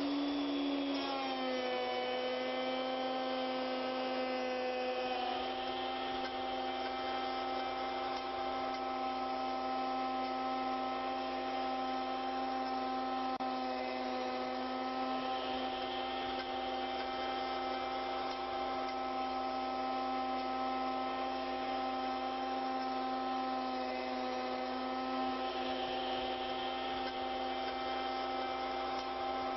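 Router motor on an ornamental woodworking mill running steadily, a constant pitched hum that settles slightly lower in pitch in the first couple of seconds.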